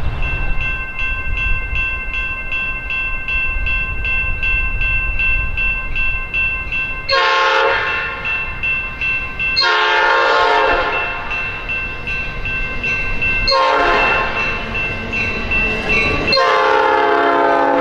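A level-crossing warning bell ringing in rapid, even strokes. Over it an Amtrak California train's multi-chime horn sounds the grade-crossing signal: two long blasts, a short one, then a long one, with the bell ringing on beneath.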